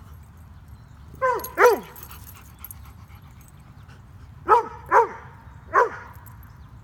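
A young dog's play barks: five short barks, each dropping in pitch, two close together about a second in and three more a little after the middle. They are aimed at another dog that holds a stick during a game of keep-away.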